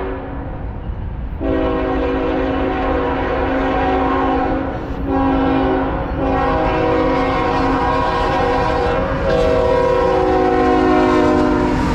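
A freight locomotive's multi-chime air horn sounds a chord in blasts: a long one, a short one, then long ones again, in the pattern of a grade-crossing signal. Underneath is the steady rumble of the passing train, and the horn's pitch bends downward right at the end as the locomotive goes by.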